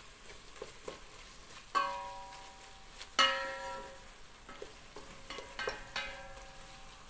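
A wooden spoon stirs food frying in a stainless steel pot, with light scrapes and taps over a faint sizzle. Twice, about two and three seconds in, the spoon knocks the side of the pot and the pot rings on briefly.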